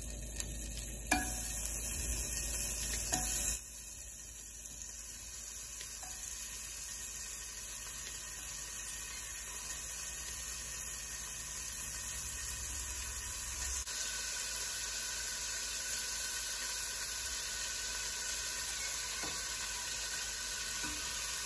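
Smoked bacon sizzling as it fries: a steady hiss, louder for a couple of seconds about a second in, then even.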